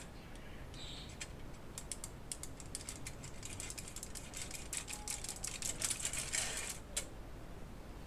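Knife slicing through a firm, chilled roll crusted with sesame seeds on aluminium foil: a run of small crackling clicks as the blade crunches through and meets the foil, thickening in the second half, with one sharper click near the end.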